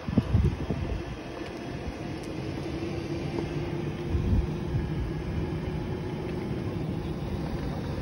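Golf cart driving on an asphalt road: a steady hum over a low rumble of running noise, with two low thumps, one just after the start and one about four seconds in.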